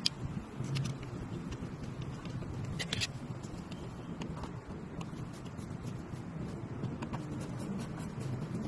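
Scattered light clicks and taps of hand tools and parts being handled at an engine bay, the sharpest about three seconds in, over a steady low background rumble.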